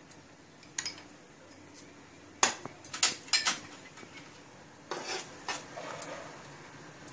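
Steel ladle stirring a pan of thick simmering tamarind chutney, clinking against the pan several times, most of the clinks coming between about two and a half and five and a half seconds in.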